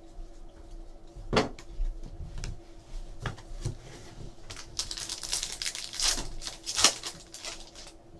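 Trading cards and their packaging being handled by hand: scattered light clicks and taps, with a few seconds of rustling a little past halfway.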